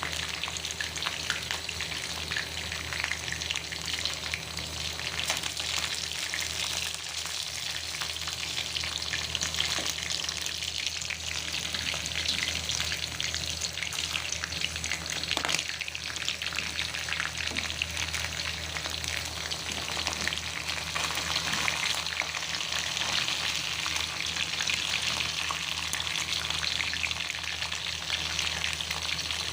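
Food frying in hot oil in a pan: a steady sizzle with a few light clicks.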